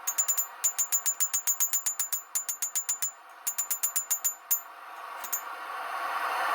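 Rapid hammer blows on steel drawing out a bar of W2 knife steel, each strike ringing sharply, about seven a second in runs broken by short pauses. Near the end the blows stop and a rushing noise rises.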